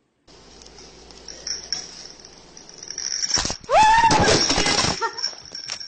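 Loud clattering and rattling, with one short cry over it about four seconds in that rises and then slowly falls.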